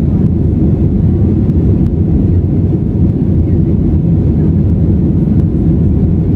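Steady low roar inside the cabin of an Airbus A320 in flight: engine and airflow noise, heard from a window seat over the wing.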